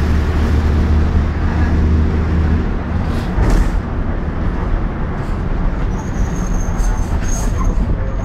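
Inside a moving city bus: the engine's steady low drone with road rumble and loud knocks and rattles of the body and fittings. The steady engine note cuts off about two and a half seconds in, leaving a rougher rumble, and a thin high squeal comes in near the end.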